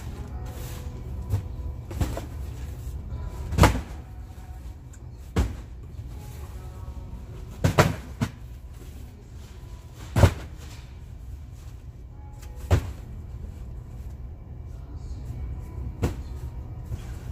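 Cardboard boxes being lifted off a pallet and set down, giving irregular knocks and thumps, about eight of them, over a steady low hum.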